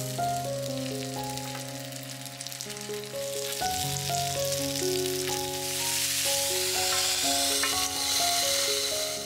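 Gyoza sizzling and frying in oil in a hot pan, the sizzle growing louder in the second half and cutting off sharply at the end.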